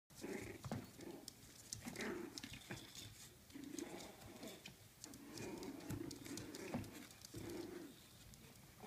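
Four-week-old Coton de Tulear puppies making short, repeated small growls and yips as they wrestle, with light ticking and pattering of paws and toys on the floor.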